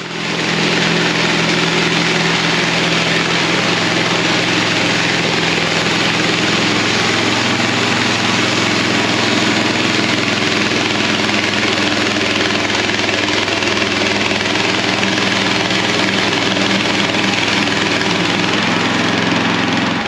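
Portable bandsaw mill (MechMaxx SM-26) running its engine hard while the band blade saws through a walnut log: a steady engine drone under a dense hiss of cutting. It grows louder about half a second in and then holds steady.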